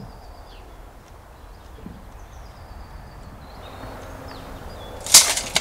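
Quiet outdoor background with faint, high bird chirps now and then. About five seconds in there is one short, loud, sharp noise.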